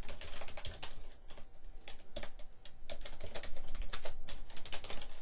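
Computer keyboard typing: quick, uneven runs of keystrokes as code is entered.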